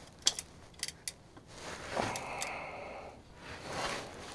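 Light metallic clicks and scraping of hand tools on a semi truck's drive axle as an old axle breather vent is worked loose, with a short squeak about two seconds in and a sharp click near the end.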